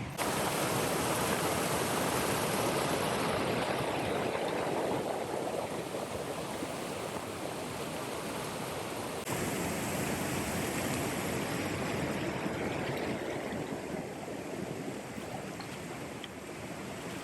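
River water flowing, a steady rushing noise that jumps abruptly in level about nine seconds in.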